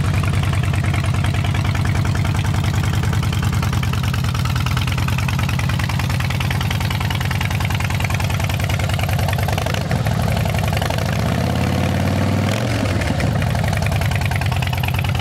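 2007 Harley-Davidson Dyna Street Bob's Twin Cam 96 V-twin idling with a loud, lumpy rumble through Vance & Hines Short Shots exhaust. A little past the middle the pitch rises briefly and falls back, like a short blip of the throttle.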